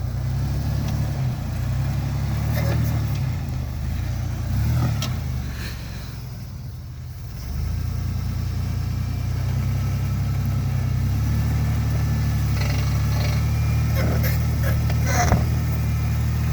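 Chevrolet Astro 4x4 van's engine running under load off-road. It eases off about six seconds in, then picks up again and holds steady, with scattered knocks and clunks.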